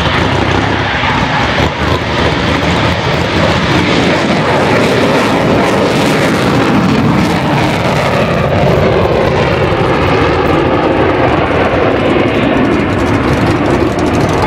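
Jet aircraft taking off at full power with a loud, steady roar. Its pitch slides downward in the second half as it passes.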